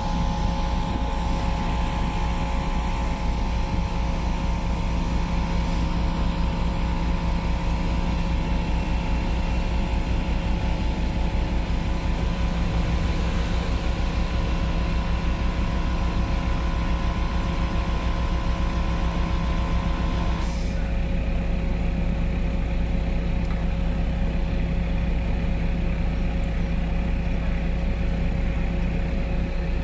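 Off-road 4x4's engine running steadily with a constant low drone and no revving. About two-thirds of the way through, a higher whine cuts off suddenly while the low drone goes on.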